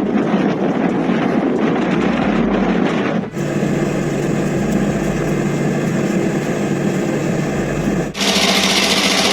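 Steady engine noise in three clips, each starting abruptly, with cuts after about three seconds and about eight seconds.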